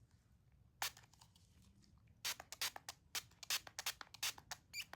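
Lace tint spray hissing in short squirts: one burst about a second in, then a quick run of bursts about four a second from halfway on.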